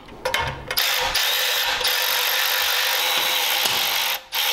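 A small cordless power tool runs steadily for about three seconds, starting about a second in, then gives two short bursts, while it works a fastener on the small engine's throttle plate.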